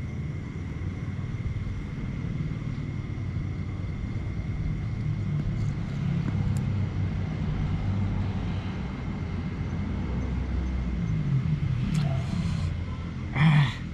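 A steady low rumble, a little louder midway, with a thin steady high tone above it throughout, and a short noisy burst near the end.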